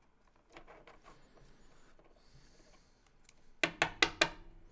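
Trading cards and packs being handled on a table: faint rubbing and light clicks, then a quick run of about five sharper clicks a little past three and a half seconds in.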